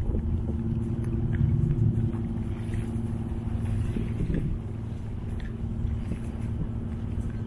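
A steady low motor drone with a few faint ticks over it.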